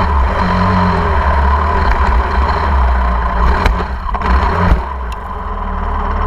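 KTM 500 EXC dirt bike's single-cylinder four-stroke engine running, coming in suddenly and holding steady, with a brief dip in level about five seconds in.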